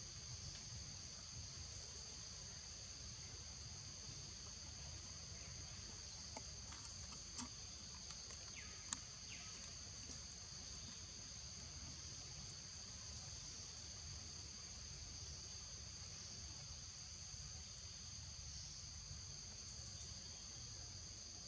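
Steady high-pitched drone of insects in the trees, with a low rumble underneath. A few faint clicks come about six to nine seconds in, the sharpest near nine seconds.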